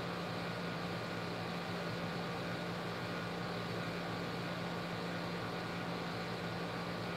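Steady room noise: a low, even hum under a soft hiss, with no change or separate event.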